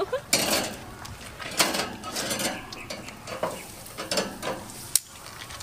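Dishes and utensils clinking and clattering in irregular bursts, with a sharp click about five seconds in.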